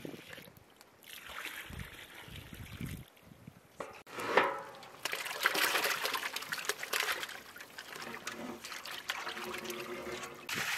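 Water trickling as it is poured from a metal bowl into pans. About four seconds in, raw chicken pieces are tipped from a metal tray into a large aluminium pot of water with a sudden splash, followed by sloshing water.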